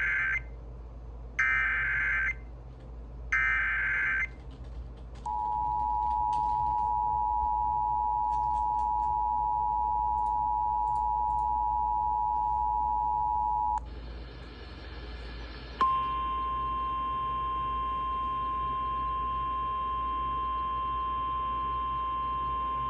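Emergency Alert System SAME header: three data bursts of about a second each, announcing an incoming alert. Then the EAS two-tone attention signal sounds steadily for about eight and a half seconds, followed by a short stretch of radio hiss. About two-thirds of the way in, the 1050 Hz NOAA Weather Radio warning alarm tone starts and holds steady, marking a National Weather Service warning.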